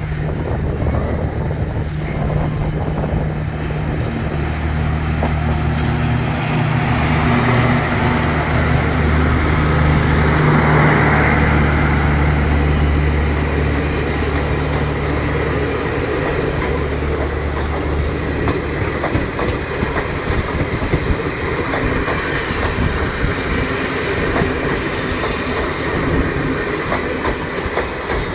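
Passenger train coaches rolling past as the train pulls out, wheels clicking and clattering over the rail joints. A steady low hum runs under it and drops away about halfway through.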